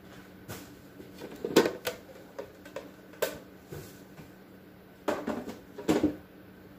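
Containers and food items being moved around and set down on refrigerator shelves: a scatter of knocks and clatters, loudest about one and a half seconds in and again around five to six seconds in, over a faint steady hum.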